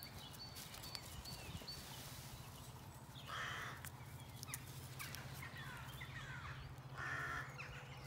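Crows cawing as they circle over a dead bird's body: two loud single caws about four seconds apart, with a few faint higher chirps between them.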